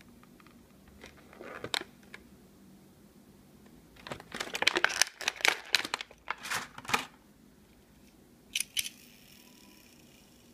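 A Hot Wheels car's cardboard-and-plastic blister pack being handled and torn open: crinkling plastic and tearing card in bursts. There is a short burst about a second and a half in, a longer, busier stretch from about four to seven seconds, and a brief crackle near the end.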